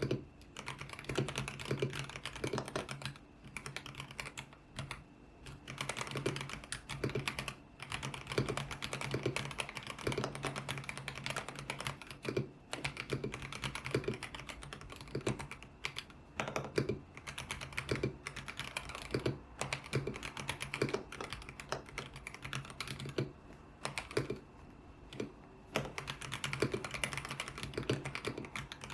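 Typing on a YUNZII X75 Pro mechanical keyboard with Kaith Jellyfish switches and its original transparent keycaps: fast, steady runs of keystrokes with brief pauses between bursts.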